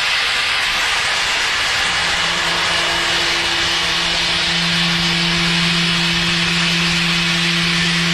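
CNC milling machine during dry high-speed cutting, with a compressed-air blast for cooling hissing steadily. About two seconds in, a steady low hum from the cut joins the hiss and holds.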